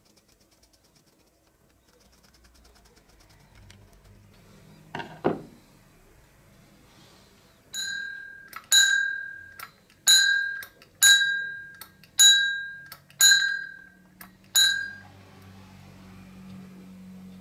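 Lever-struck bicycle bell being rung by thumb seven times, about one ding a second, each a bright ringing tone that fades away. Two knocks come a few seconds before the ringing starts.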